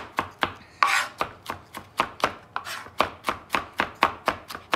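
Chef's knife rapidly rough-chopping garlic cloves on a plastic cutting board: a steady run of sharp knocks, about four a second.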